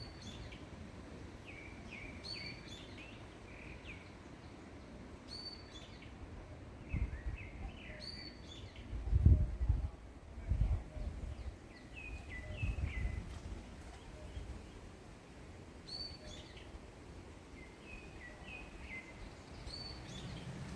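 A small songbird singing a short phrase over and over, a high falling note and a quick twitter, every two to three seconds. In the middle, gusts of wind buffet the microphone with a low rumble.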